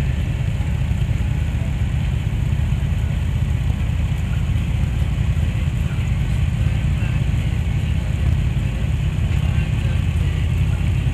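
Steady low rumble of a moving motorcycle's engine and road noise, mixed with wind buffeting the camera's microphone, with no changes in pace.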